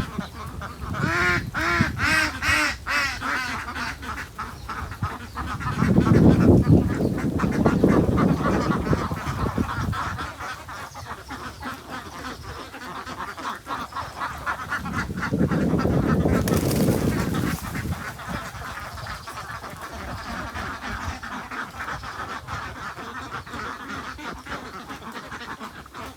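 Farm-animal calls with a quacking and honking character: a quick run of short pitched calls in the first few seconds, then two louder, lower calls of a few seconds each, about six and fifteen seconds in.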